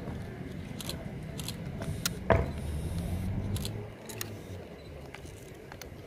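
Boots of a marching soldier striking a tarmac parade ground: a string of sharp clicks at an uneven walking pace, with one louder stamp a little past two seconds in, over a low outdoor rumble.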